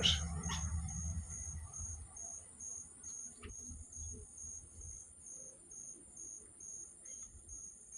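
Crickets chirping: a high, steady chirp repeating about twice a second over a continuous higher trill.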